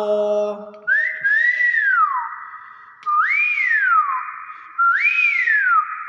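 Common hill myna whistling: three slurred whistles, each rising quickly and then gliding down, spaced a little under two seconds apart. They follow the tail of a mimicked word at the start.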